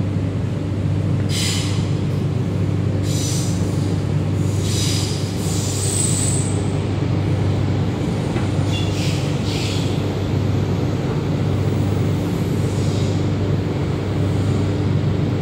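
MTR K-train metro car running between stations, heard from inside the car: a steady low running hum with short high wheel squeals several times, including a thin high-pitched squeal about six seconds in.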